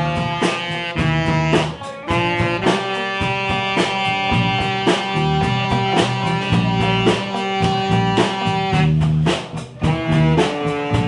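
Live band playing: a saxophone carries held notes over electric guitars and a drum kit, with a couple of brief breaks in the rhythm.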